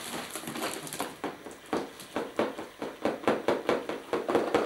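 A quick run of sharp knocks, about four a second, growing louder toward the end.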